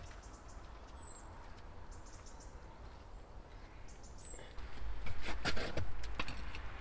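Quiet outdoor background with a few short, high, falling bird chirps. About five seconds in, a low rumble starts, along with a string of knocks and scrapes as a concrete block is set on the wall and a spirit level is put against it.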